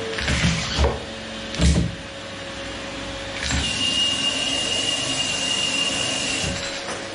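Vacuum cleaner running with a steady motor hum and a few knocks as it is moved about. From about three and a half seconds in, a louder stretch with a high whine lasts about three seconds.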